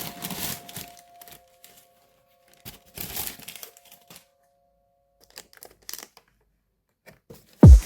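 Sparse crinkling, rustling and light clicks of packaging and plastic parts being handled, with a faint steady tone that stops about five seconds in.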